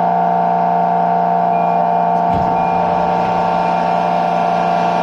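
Motor-generator (MG) under a 205 series 600-subseries electric car giving a loud, steady whine of unchanging pitch, the abnormal MG noise the recording was made to capture. A single low thud about two seconds in.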